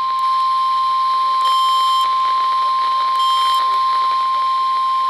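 Weather radio alert tone: a single steady tone near 1 kHz, held without a break over a steady hiss. This is the NOAA Weather Radio warning alarm, the signal that a warning message is about to be broadcast.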